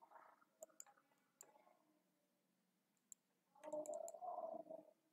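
Near silence with scattered faint clicks, typical of a computer mouse, and a faint low murmur lasting about a second that starts about three and a half seconds in.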